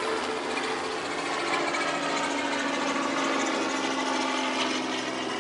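Engine drone of a passing vehicle, steady with a few held tones, one of which sinks slowly in pitch as it goes by.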